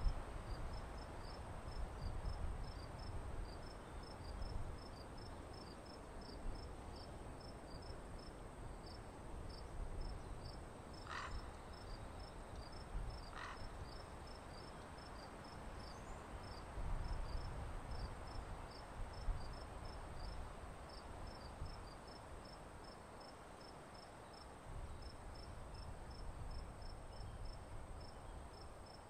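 A cricket chirping steadily in the background, short high chirps at about three a second, over a low rumble that comes and goes in gusts.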